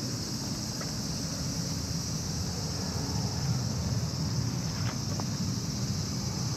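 Steady high-pitched chorus of insects shrilling, over a steady low rumble.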